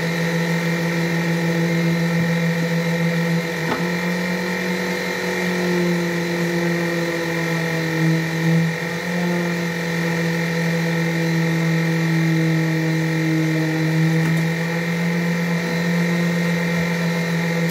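A motor running steadily with a constant droning hum, its pitch wavering only slightly. A light knock sounds about four seconds in and another near fourteen seconds.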